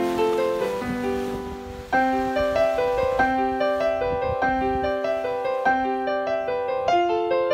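Background music led by piano, a steady run of notes that gets louder about two seconds in.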